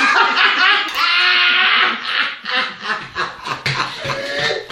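People laughing in short, choppy bursts.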